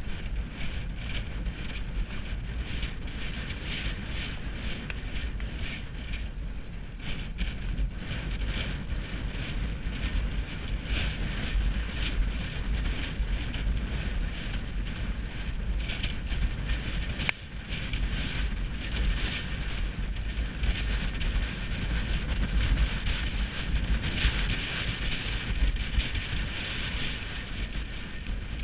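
Wind buffeting the microphone of a camera carried by a rider at the gallop, over the pounding hoofbeats of racehorses galloping on turf.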